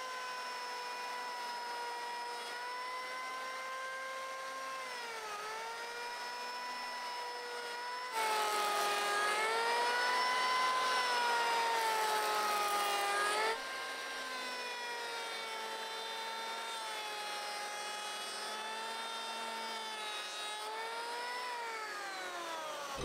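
High-pitched whine of a small fast-spinning motor, drifting up and down in pitch with dips about 5 s in and near the end. The sound changes abruptly about 8 s in, turning louder and brighter, and drops back about 13.5 s in.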